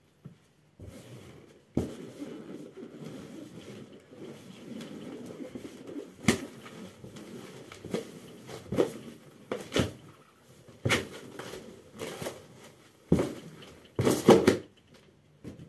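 A socked foot pressing and squashing an inflated latex balloon on carpet: rubbery rubbing and squeaking, then a string of sharp smacks as the balloon is stepped on and springs back, the loudest near the end.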